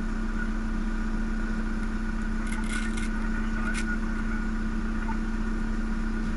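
4x4 van engine running steadily at low speed, a constant drone with a steady hum. A few brief ticks come in around the middle.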